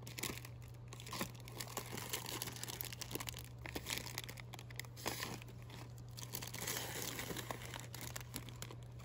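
Clear plastic bags around soap-pump dispensers crinkling and crackling irregularly as a hand handles them, over a steady low hum.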